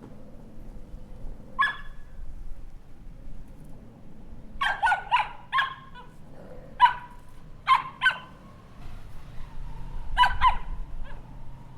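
Puppy yapping: about ten short, high-pitched barks, some single and some in quick runs of two to four.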